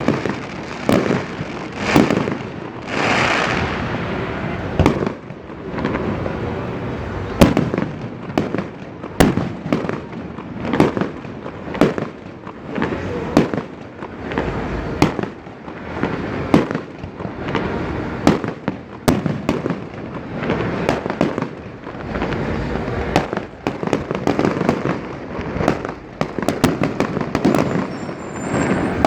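Fireworks display: a long, irregular series of sharp bangs from bursting shells, coming every half second to two seconds, with a continuous rumbling noise between them.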